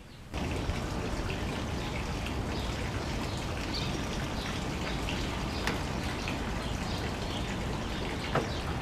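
Water running in a steady stream: potted plants being watered with Miracle-Gro fertilizer solution.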